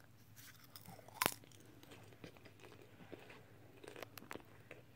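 Popcorn being chewed: faint, scattered crunching and crackling, with one sharper click a little over a second in.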